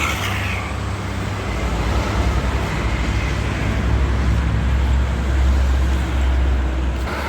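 Road traffic passing on a highway: a steady deep engine and tyre rumble that swells a little in the second half, with no horn sounding.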